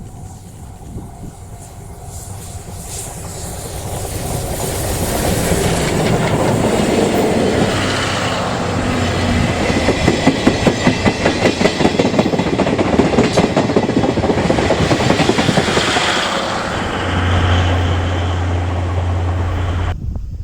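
Steam locomotive C57 180 and its 12-series passenger coaches passing close by. The sound swells as the train approaches, then the wheels clatter over the rail joints in an even clickety-clack, and it cuts off suddenly near the end.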